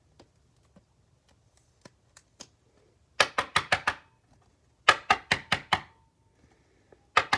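Sharp clicks and taps in three quick runs of about six each, made by handling a sleeved trading card and its holder while setting it into a small display stand.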